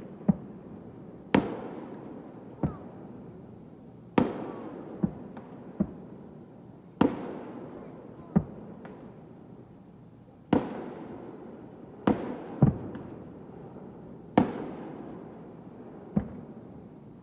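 Fireworks display: aerial shells going off one after another, about a dozen sharp bangs spaced a second or two apart, each trailing off in a rolling echo.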